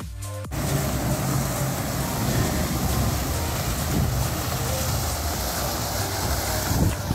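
Strong wind buffeting the microphone: a loud, even rushing noise with a heavy low rumble. It starts abruptly after a brief dropout about half a second in and eases just before the end.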